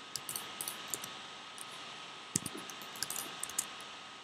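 Computer keyboard keys and mouse buttons clicking in short irregular runs, over a faint steady hiss.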